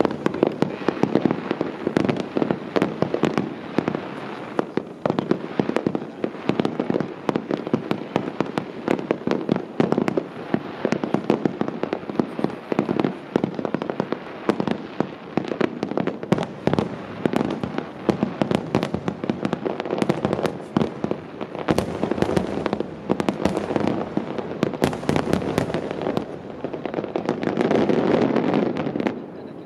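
Starmine fireworks barrage: aerial shells bursting in a rapid, unbroken stream of bangs and pops with echoes between them. Near the end the sound thickens into a dense, steady mass, then stops suddenly.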